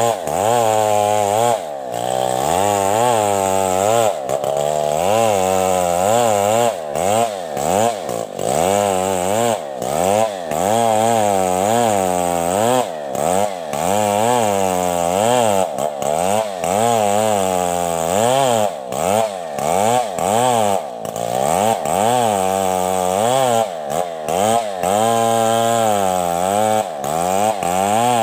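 STIHL chainsaw ripping lengthwise through coconut timber at full throttle. Its engine note rises and falls over and over, about twice a second, as the chain loads up in the cut and frees again.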